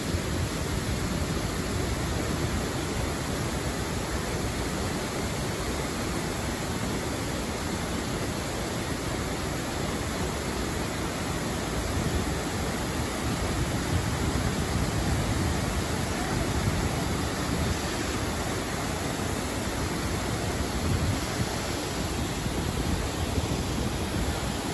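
Steady rushing and splashing of water pouring down a man-made waterfall into a shallow urban stream, an even hiss without breaks.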